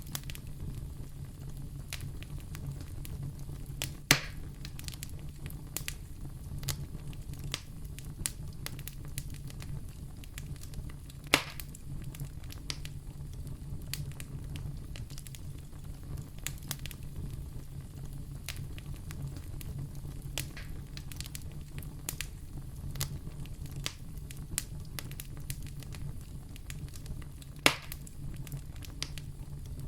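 Fireplace fire crackling, with a steady scatter of small snaps and three louder pops, over a steady low rumble.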